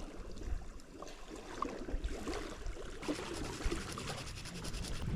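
Soft scraping and rubbing with a few small ticks: ingredients being spooned and scraped into a cup to make a miso sauce.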